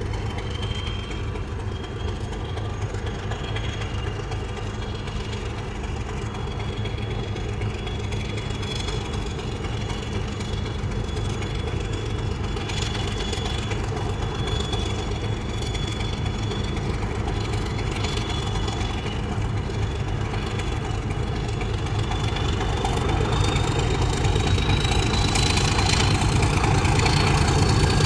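British Rail Class 31 diesel-electric locomotive approaching under power, its English Electric diesel engine a steady low drone that grows steadily louder. A thin high whine over the engine rises in pitch near the end.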